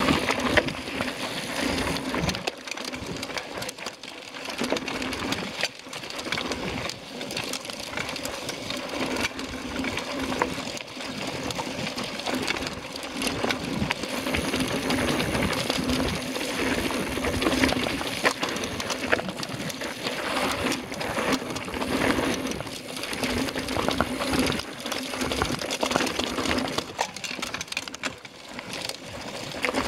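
Mountain bike rolling over rough, rocky dirt singletrack: tyres crunching on stones and gravel and the bike rattling, with many small knocks and clatter.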